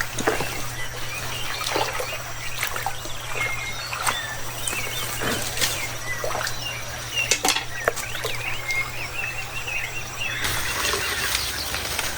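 Small birds chirping over and over, with scattered knocks and rustles. A steady low hum drops out near the end and a hiss takes over.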